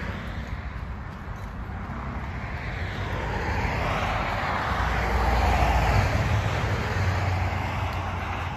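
Traffic passing on a highway: a rush of tyre and engine noise that swells to its loudest about five to six seconds in, then eases off.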